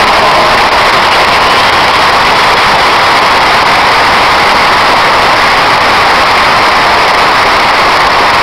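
Large football stadium crowd cheering and applauding, a loud steady wash of noise.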